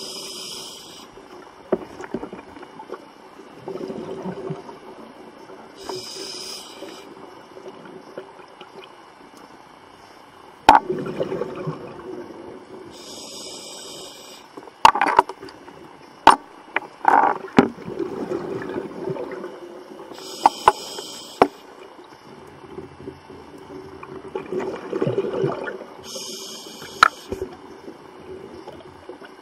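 Scuba diver breathing through a regulator, heard underwater: a bubbly hiss of exhaled air about every six to seven seconds, five times. Between about 11 and 22 seconds in come several sharp knocks over a steady low hum.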